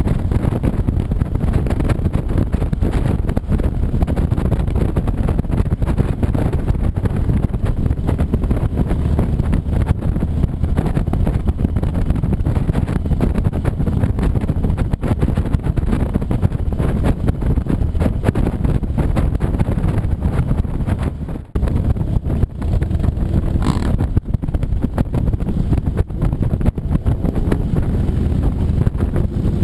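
Motorcycle on the move: a steady low rumble of engine and wind noise on the microphone, with one brief dip in level about two-thirds of the way through.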